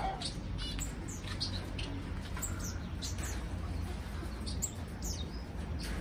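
Small cage finches chirping in an aviary: many short, high call notes, several falling in pitch, over a steady low rumble.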